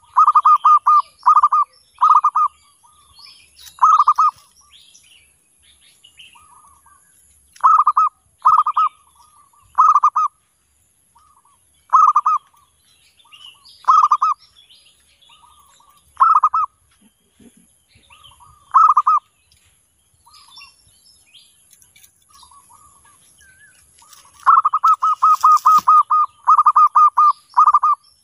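Zebra doves (perkutut) cooing: fast runs of short, clipped notes at the start and again near the end, with single short cooing phrases every second or two in between. Fainter, higher chirps from other small birds come and go above them.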